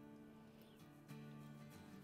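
Faint background music with soft, held notes that change about a second in.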